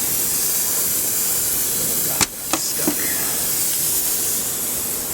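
A loud steady hiss, as from a pressurised spray or air jet, cut off for an instant about two seconds in, with a few light clicks.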